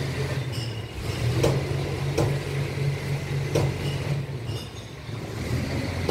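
Reverse vending machine's back-room machinery running with a steady low hum that eases a little after four seconds, with three sharp clinks, most likely containers dropping into the collection bins.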